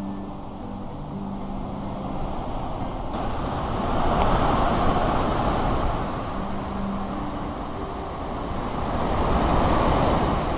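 Roar of a large waterfall: a steady rush of falling water that swells louder twice.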